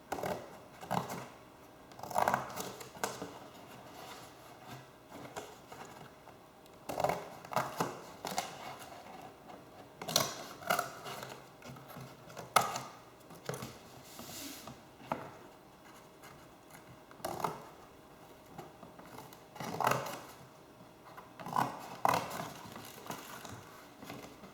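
Scissors snipping and a sheet of material being handled and shifted: irregular snips, scrapes and rustles, some close together and some a few seconds apart.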